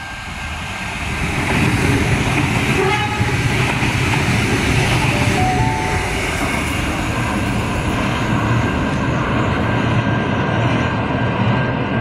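Adelaide Metro 4000 class electric multiple unit rolling through the station on its rails. Its noise rises over the first second or two as it comes near, then holds loud and steady as the carriages go by.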